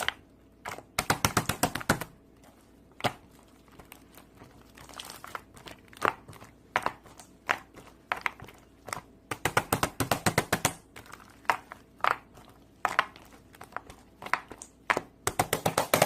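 Crunchy slime being squeezed and pressed, giving sharp crackling pops: three quick runs of many clicks, with single pops between them.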